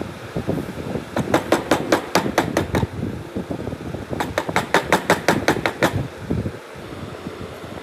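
A hand-held wood chisel is worked into a notch in a beam, chipping and prying out waste wood. There are two runs of quick, sharp clicks, about six a second: one starts about a second in, the other just after the middle. A steady low hum runs underneath.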